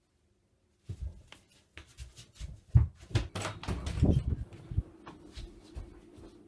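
A run of irregular knocks and thumps, the loudest about two seconds in, as the camera is picked up and carried around a small bedroom past a wardrobe and door. A faint steady hum follows.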